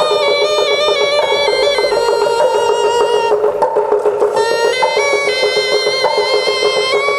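Music: a wind instrument plays a melody that steps from note to note over a steady drone, with fast rattling percussion underneath.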